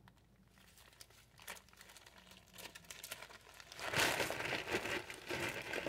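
Plastic packaging bags crinkling as they are handled and rummaged through. Faint rustles at first, then louder, dense crinkling from about four seconds in.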